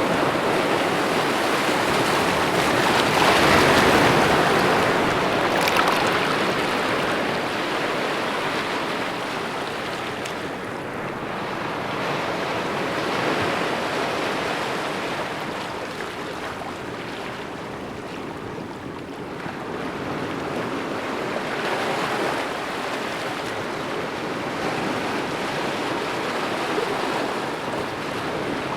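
Gentle ocean waves breaking on a beach: a continuous wash of surf that swells and recedes every few seconds, with the strongest wave about three to five seconds in.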